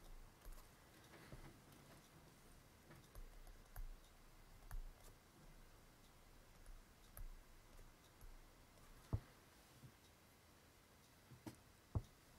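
Faint, scattered clicks and taps of a stylus on a pen tablet during handwriting, with two sharper clicks in the last few seconds.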